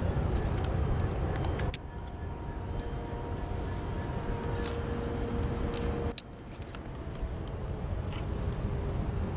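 Metal climbing hardware, carabiners and rope devices on a harness, clinking and jangling as the rope is handled, with two sharp clicks, one under two seconds in and another about six seconds in. A steady low rumble of wind on the microphone runs underneath.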